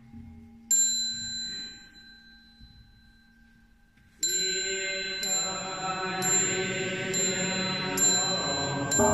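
A bright bell-like ding about a second in that rings out and fades, then from about four seconds in a music bed with chime strikes about once a second.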